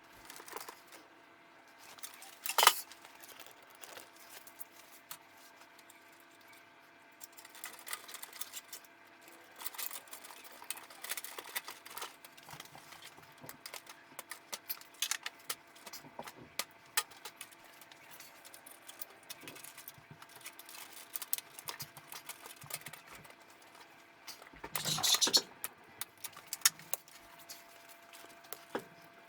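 Hands handling computer parts and cables: scattered small clicks, taps and rustling over a faint steady hum. There is a sharp click about two and a half seconds in and a louder clatter around twenty-five seconds.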